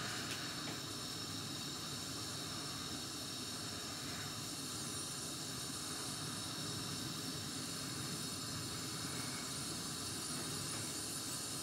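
Steady hiss from a pot of phosphating solution heating just short of the boil, with small bubbles starting to form on the bottom.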